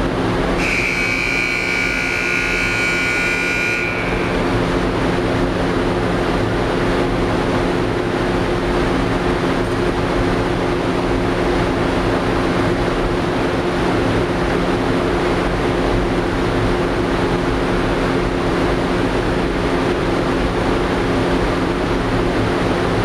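Steady, loud roar of a running aluminum stack melter furnace and plant machinery, with a constant low hum under it. A high-pitched whine sounds for about three seconds near the start.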